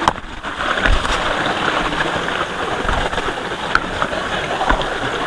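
River water flowing steadily, with a few soft knocks.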